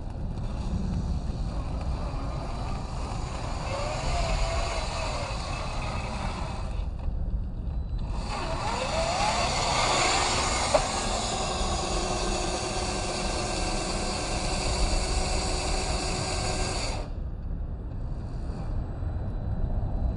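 Drivetrain of a 1/10-scale RC4WD Trail Finder 2 crawler with a Fusion SE 1800kv motor, whining as the pitch rises and falls with the throttle, over a steady low rumble. There is a single sharp tick about eleven seconds in.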